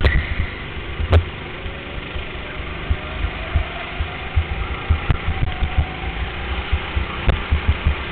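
Go-kart motor running as the kart drives around an indoor track, heard from an onboard camera, with irregular low thumping from vibration and a sharp knock about a second in and again near the end.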